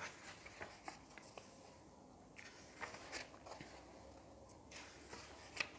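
Faint rustling and soft flicks of paper pages as a paperback book's pages are turned by hand.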